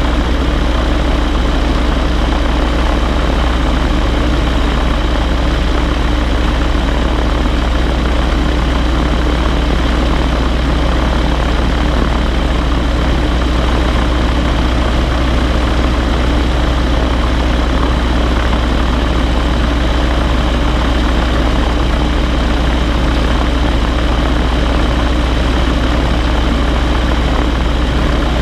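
Ranger gyrocopter's pusher engine and propeller running steadily at low taxi power.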